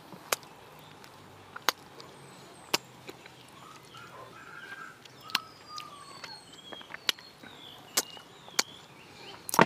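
Mouth sounds of eating soft durian flesh: sharp wet lip smacks about once a second, with quieter chewing between them. Birds chirp in short rising and falling whistles through the middle.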